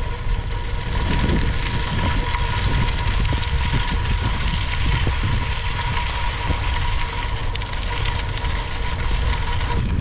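Wind rumbling on the camera microphone and bike tyres rolling over gravel as the bicycle is ridden; a steady, crackly noise.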